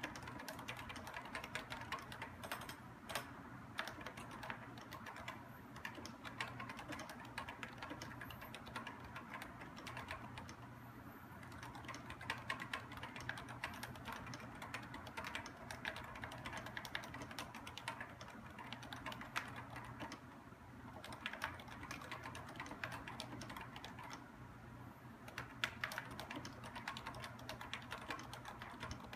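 Continuous fast typing on a Topre electrostatic-capacitive keyboard: a dense run of muted key strokes with a few brief lulls.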